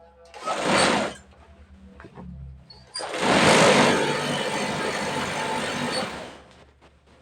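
Industrial chain-stitch feed-off-the-arm sewing machine running in two spells: a short burst of about a second near the start, then a steady run of about three seconds from about three seconds in.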